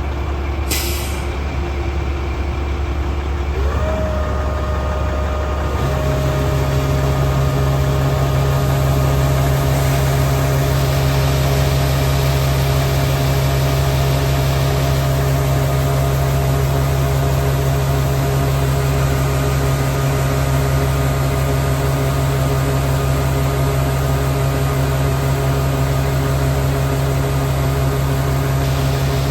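Combine harvester's diesel engine running steadily; its pitch shifts up about four seconds in, and a deep steady hum joins about six seconds in. A brief hiss sounds about a second in.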